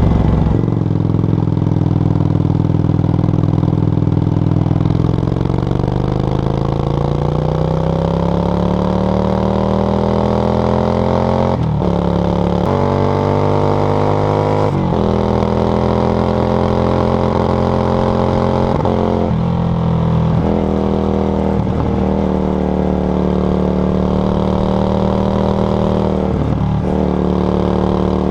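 Yamaha XV535 Virago's V-twin through a SilverTail K02 aftermarket exhaust while riding. The revs drop at the start, hold low, then climb slowly for several seconds. Two gear changes break the pitch about twelve and fifteen seconds in, after which the engine runs mostly steady with a few brief dips in revs.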